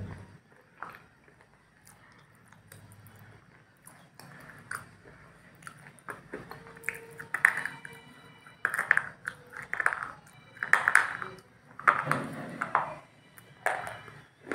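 A person eating close to the microphone: a spoon taken to the mouth, then chewing in loud bursts about once a second, with short high ringing pings alongside.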